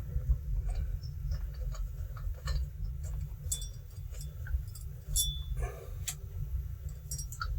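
Scattered light clicks and small knocks of parts and tools being handled on a partly dismantled chainsaw, with a couple of brief high squeaks, over a steady low hum.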